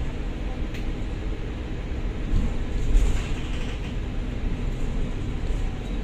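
Cabin noise on the upper deck of a moving Volvo B9TL double-decker bus: the Volvo D9A diesel engine and road rumble run steadily, with a few light rattles and a louder bump about three seconds in.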